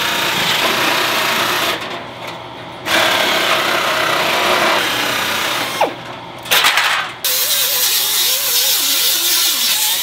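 Hand-held power cutting tool cutting through the steel of a 1967 Porsche 911 rear fender panel to trim it. It runs in loud runs, stops for about a second around two seconds in and briefly again near the middle, then carries on with a wavering pitch.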